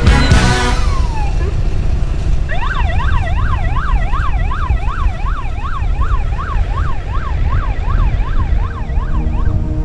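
Electronic siren in a fast yelp, its pitch rising and falling about two and a half times a second. It starts a couple of seconds in and stops just before the end, over a steady low rumble of road noise from the moving motorcycles.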